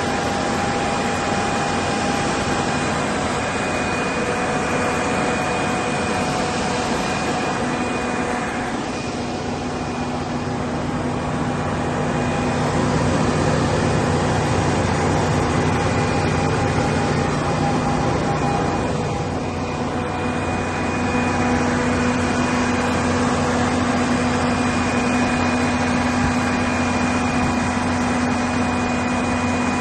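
Kohler 200 kW natural gas generator set, a low-hours unit at about 500 hours, running steadily with a low hum and several steady tones. Its sound dips and shifts slightly about a third of the way in and again about two-thirds in.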